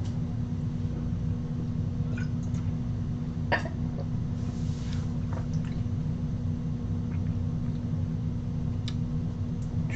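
Steady low hum of room or equipment noise with a faint constant tone, broken by a few faint clicks and a brief soft hiss near the middle.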